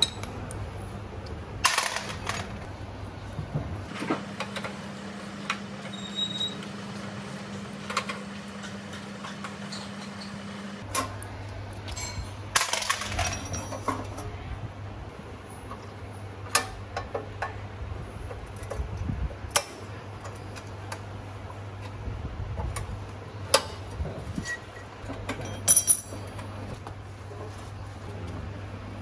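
Scattered metal clinks and clanks of bolts, hand tools and sheet-metal covers being handled while an RT140 diesel engine is taken apart, over a steady low hum.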